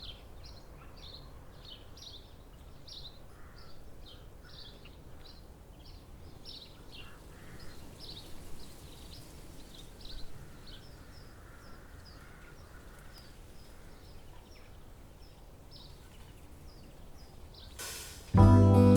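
Outdoor ambience: a steady series of short, high chirps, two or three a second, slowly growing fainter, over a faint even background noise. Acoustic guitar music starts suddenly near the end.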